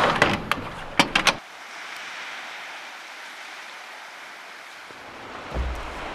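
A few sharp clicks and knocks as a glass-paned dome door is handled, then a steady, even hiss of distant sea surf.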